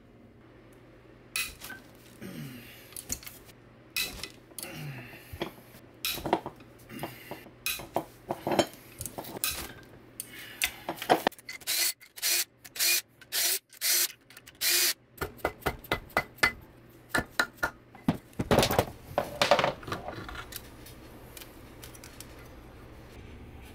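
Cordless impact driver run in short bursts on bolts of a Honda VFR800 V4's cylinder head, amid metal clinks of bolts and tools against the aluminium head. The string of bursts comes about halfway through, and two longer bursts come near the end.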